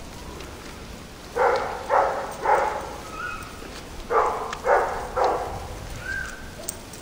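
Labrador retriever barking during play: two runs of three short barks about half a second apart, the second run starting about four seconds in, over a steady hiss.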